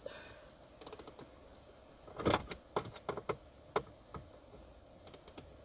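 Small socket ratchet clicking in short quick runs while a dash speaker's mounting screw is turned out, with a few separate louder clicks and knocks in between.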